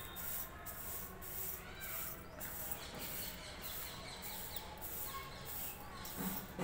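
Dry lentils being pushed and raked by hand across a steel plate while being picked over, a repeated soft rasping scratch, a little more than twice a second. Faint bird chirps sound in the background.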